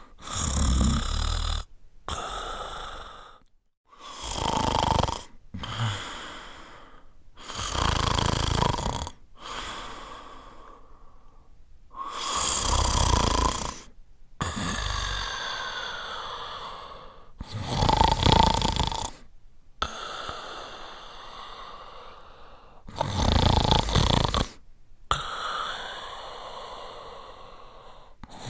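A person snoring in deep sleep. Loud rasping snores come about every four to five seconds, each lasting a second or so, with softer breaths between.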